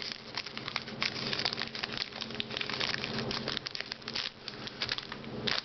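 Foil Pokémon booster-pack wrapper crinkling and crackling as it is opened by hand, a dense run of small crackles over a faint steady low hum.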